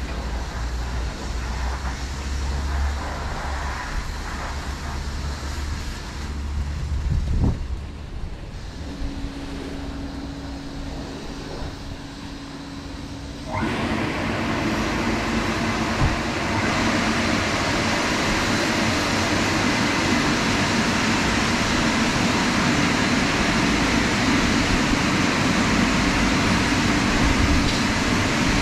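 Christ Cadis C17 rollover car wash running its drying stage. After a quieter stretch with a steady motor hum, the dryer blowers switch on suddenly about halfway through, and a loud, steady rush of air holds to the end.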